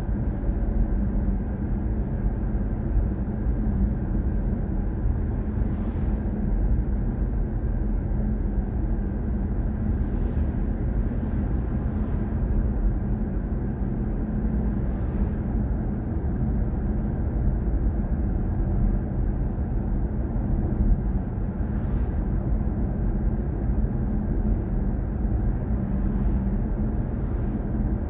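Steady low road and tyre rumble heard inside the cabin of a BMW i4 M50 electric car cruising along an open road.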